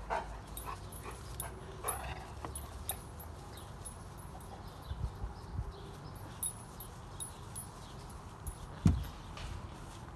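Irish setter puppies playing rough with each other, giving a few brief soft whimpers and yips. There is scattered rustling and a single low thump about nine seconds in.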